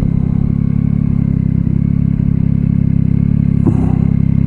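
Yamaha Tracer 9's 890 cc three-cylinder engine running steadily at low revs as the bike slows and pulls over to stop, with a single light click about three and a half seconds in.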